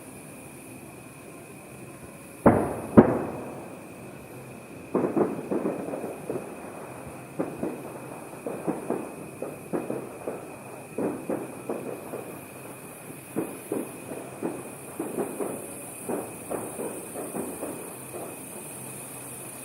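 Aerial fireworks going off: two loud bursts about half a second apart, then from about five seconds in a long, irregular run of smaller pops and crackles.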